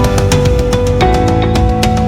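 Background music: an instrumental track with a steady beat and sustained notes that change chord about a second in.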